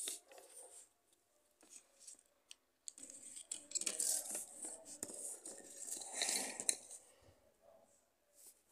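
Rustling and scraping as the phone and pens are moved about over a table, with a few light clicks, busiest from about three to seven seconds in.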